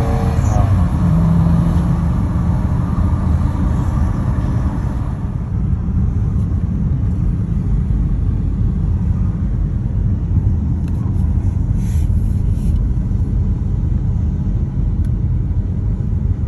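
Steady low rumble of a car driving, with a few faint clicks about twelve seconds in.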